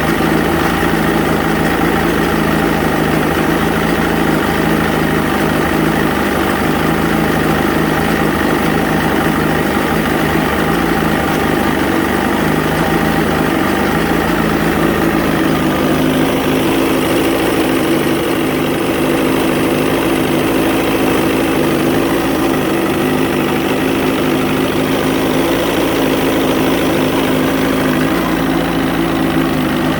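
A 1980 Johnson 115 hp V4 two-stroke outboard idling steadily, its note shifting slightly about halfway through. The owner reports a cough/sneeze problem with this engine.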